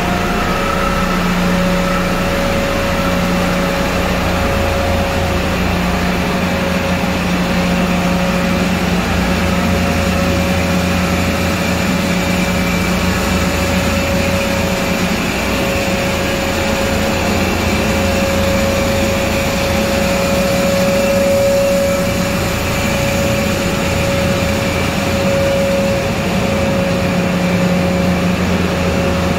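Engine room machinery on a cruise ship running steadily: electric pumps and centrifugal fuel separators. A loud, constant hum with a steady mid-pitched tone held over it.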